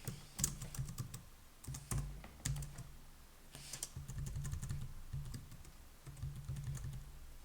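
Computer keyboard typing in irregular bursts of key clicks, as a folder name is typed.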